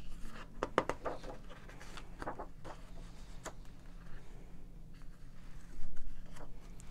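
Pages of a hardcover picture book being turned by hand, twice: quick paper rustles and light clicks, the louder turn coming a little before the end.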